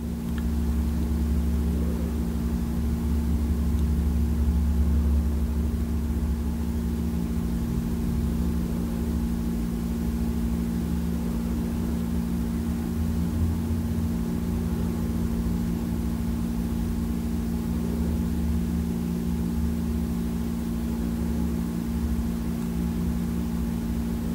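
An engine running steadily with a constant low hum and rumble, as at idle.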